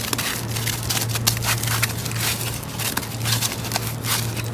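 Aluminium foil crinkling and crackling in irregular bursts as it is wrapped around an ear of corn, over a steady low hum.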